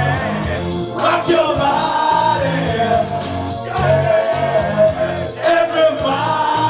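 A pop song with a steady beat, with a group of voices singing along.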